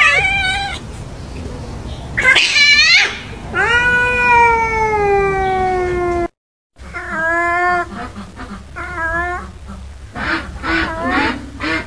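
Domestic cats yowling at each other while squaring off, the drawn-out calls of a territorial standoff. Several short yowls, then one long call that slides slowly down in pitch for nearly three seconds; after a brief silent gap, more short yowls.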